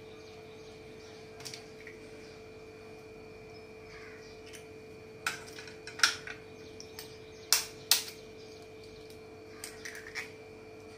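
Steel spoon tapping eggshells to crack eggs over a bowl: a handful of short, sharp taps, mostly in quick pairs, with the sharpest pair a little past the middle. A steady faint hum runs underneath.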